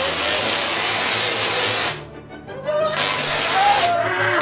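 Large Tesla coil firing: the loud, harsh buzzing crackle of its spark discharge, with a low droning pitch underneath. It cuts out for about a second near the middle, where people shout, and then starts again.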